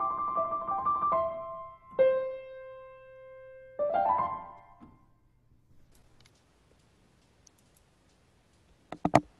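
The piano solo comes to its end: melody notes, then a held note about two seconds in and a last chord near four seconds that rings and fades away. Two sharp clicks come near the end.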